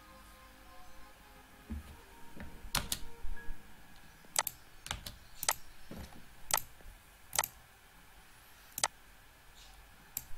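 Computer keyboard and mouse clicks, about seven sharp, irregular clicks spread through the middle of the stretch, over faint background music.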